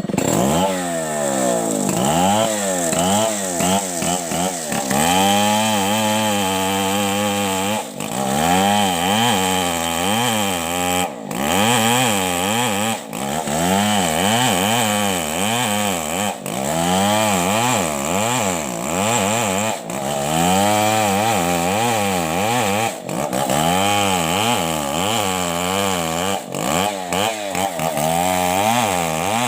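Stihl 070 two-stroke chainsaw running at high speed while sawing, its engine pitch rising and falling over and over, with a few brief dips.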